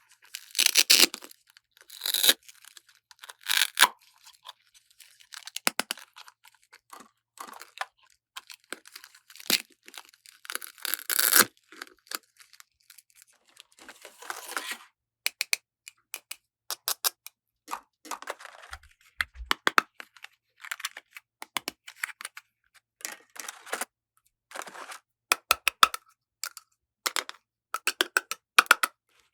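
Small plastic toy pieces and their packaging being handled: many sharp clicks and taps, some in quick runs, with short bursts of rustling and tearing plastic wrap between them.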